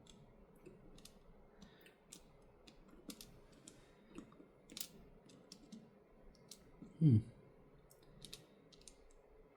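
Light, scattered clicks and ticks of small parts and tools handled while the camera module is being fitted back into a Samsung Galaxy S23 Ultra's frame. A short, louder vocal sound falling in pitch about seven seconds in.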